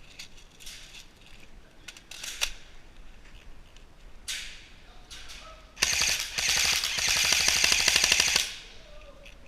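Airsoft gun firing a long full-auto burst of rapid, evenly spaced clacks lasting about two and a half seconds, starting around six seconds in. A few scattered short noises come before it.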